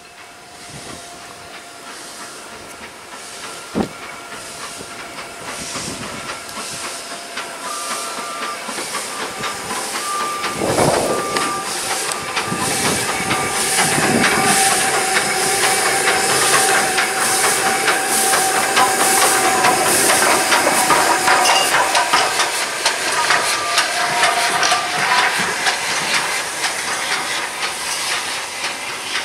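GNR N2 0-6-2T steam tank locomotive working past, its exhaust chuffing in regular beats over a hiss of steam, growing louder as it draws near and easing a little as it moves away. A single sharp clank about four seconds in.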